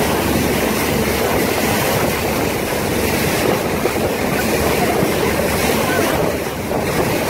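Small motorboat under way on choppy sea: its engine running steadily, with water rushing past the hull and wind buffeting the microphone.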